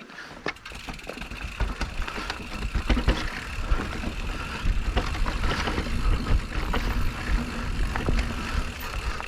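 Electric mountain bike being ridden along a dirt trail: a steady low rumble of tyres and wind, scattered with clicks and rattles from the bike, getting louder about a second and a half in as it picks up speed.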